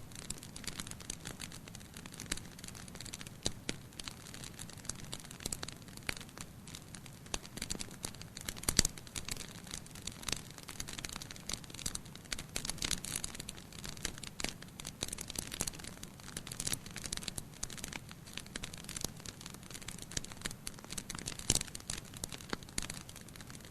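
Wood campfire crackling: irregular sharp pops and snaps over a low steady hiss of burning, with a louder pop about nine seconds in.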